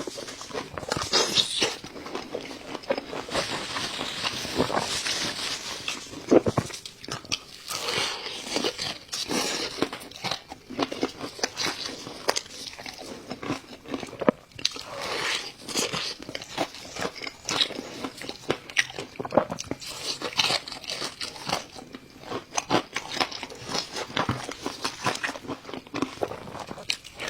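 A person biting and chewing crispy fried food, with dense crunching all the way through.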